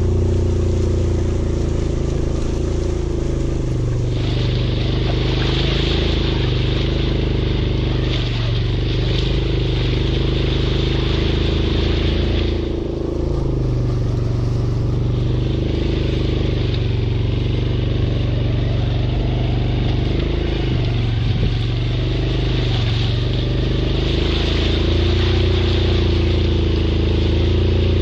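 Small motorcycle engine running at low speed, its note wavering slightly as the throttle is eased. A hiss comes and goes over it, dropping out for a couple of seconds midway.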